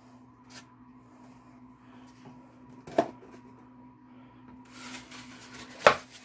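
Rock-wall diorama pieces being handled: a sharp knock about halfway through, a short rustle of handling, then a louder knock near the end as a piece is picked up and set against the table.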